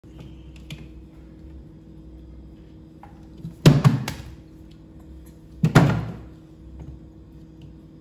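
Two clusters of heavy knocks and thuds, the first about three and a half seconds in and the second two seconds later, as a small monkey handles fruit and shelves inside an open refrigerator. A low steady hum runs underneath.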